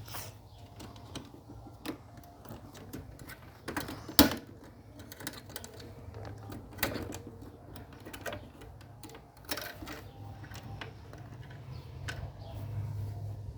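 Irregular clicks, taps and knocks of small parts and tools being handled during repair work, with one louder knock about four seconds in, over a steady low hum.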